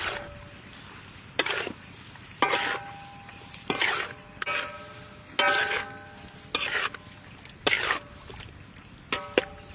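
Metal spatula scraping and clanking against a metal wok while stirring pork intestines, about one stroke a second, each stroke leaving a short metallic ring.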